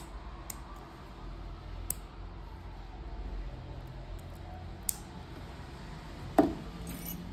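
Light metallic clicks of a spring bar tool and a steel bracelet end link against a watch case's lugs while the bracelet is fitted. There are a few scattered small clicks and one louder, sharper click with a brief ring near the end.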